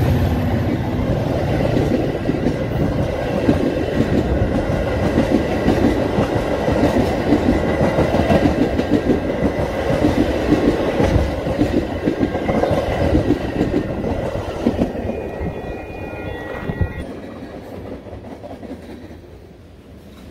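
Metra commuter train's stainless-steel bilevel passenger coaches rolling past close by: a steady rumble with rapid clickety-clack of wheels on the rails, fading away near the end.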